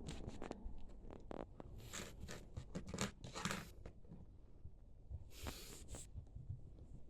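Light rustling, scratching and clicking from a kitten at play, with brief scratchy bursts about two, three and five and a half seconds in.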